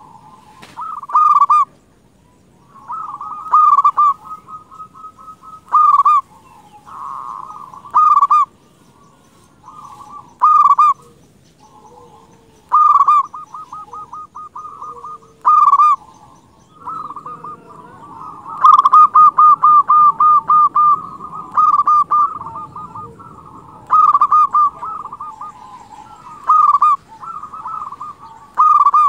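Zebra dove (perkutut) cooing vigorously: soft hooting phrases repeated about every two seconds, some of them quick runs of short staccato notes, with calls overlapping in a denser stretch past the middle.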